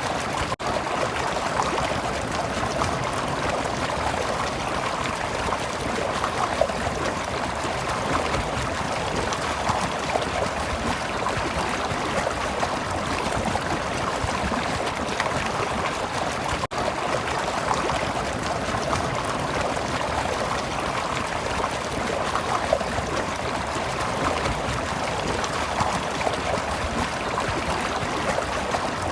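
Stream water flowing and trickling steadily, broken by two momentary dropouts, one near the start and one about halfway through.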